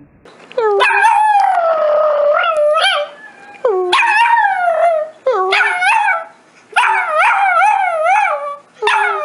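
A dog howling in a run of about five long calls, each with a wobbling pitch that rises and falls, with short breaks between them.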